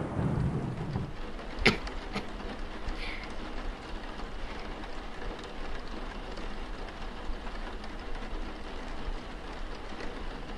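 Steady rain, with the tail of a thunder rumble dying away in the first second. A sharp click about a second and a half in is the loudest moment, with a fainter click shortly after.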